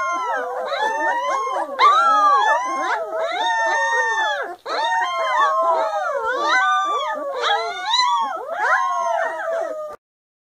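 A litter of three-week-old English golden retriever puppies howling together: several high puppy voices overlap, each call gliding up and then down in pitch, with a brief gap about halfway through. The chorus stops suddenly near the end.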